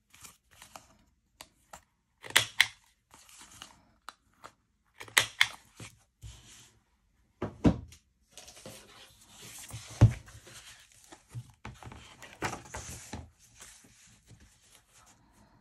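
A Kadomaru Pro corner rounder punching the corners of a paper picture: three sharp clicks a couple of seconds apart. Then paper rustling and sliding, with one thump about ten seconds in as the picture is laid on a journal page.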